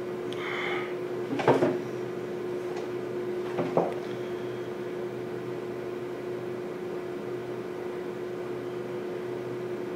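A man stirring in a wooden chair at a table: a few brief knocks and rustles in the first four seconds, the loudest about a second and a half in. A steady hum of room tone runs underneath.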